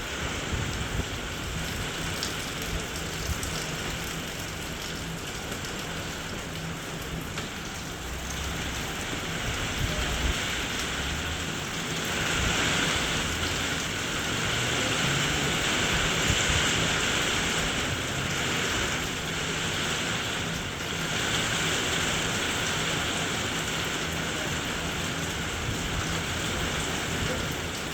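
Heavy rain pouring down steadily, growing louder about twelve seconds in.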